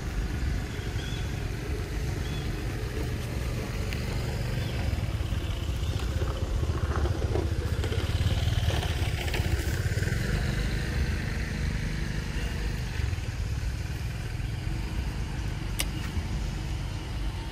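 Steady low rumble of motor traffic, swelling about halfway through as a vehicle passes.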